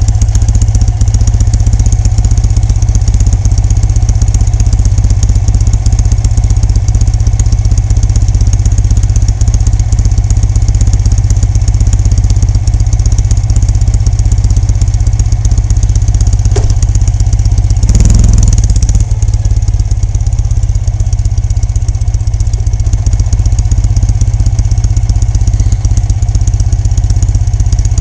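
2006 Ural Gear-Up's 750 cc air-cooled flat-twin engine idling steadily through a ModTopp aftermarket exhaust: a loud, deep, even exhaust note, with one brief louder swell about two-thirds of the way through.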